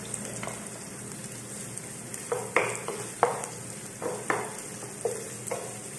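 Sliced onion, garlic and ginger sizzling in oil in a frying pan, with a wooden spatula stirring and scraping against the pan in about six short strokes from about two seconds in.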